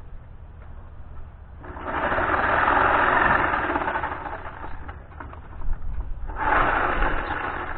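Power saw cutting into pallet wood in two runs, one of about three seconds starting near two seconds in and a second starting about six and a half seconds in, with a pause between.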